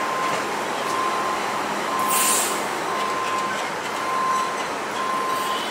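Steady vehicle noise with a repeating high beep about once a second and a short hiss about two seconds in.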